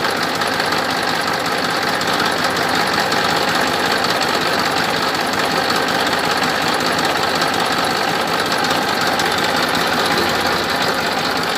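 A small motor running steadily with a fast, even rattle, starting and stopping abruptly.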